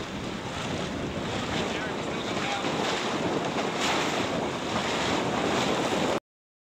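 Steady wind noise on the microphone over the rush and slosh of choppy water around a small boat under way. It cuts off suddenly to dead silence about six seconds in.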